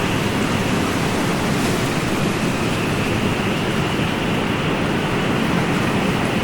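Ocean surf: a steady, even rush of wave noise with no separate breaking waves standing out.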